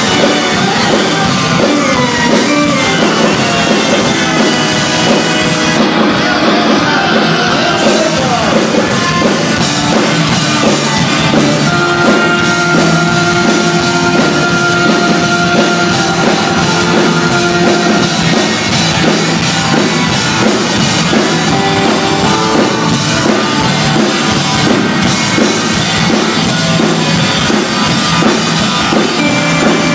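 Post-punk rock band playing live and loud, with electric guitar, drums and keyboards, heard from within the audience.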